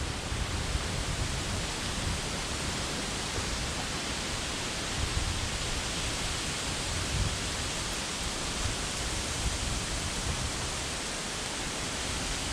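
Steady rushing noise of an approaching thunderstorm, wind and rain, with uneven low gusts buffeting the microphone.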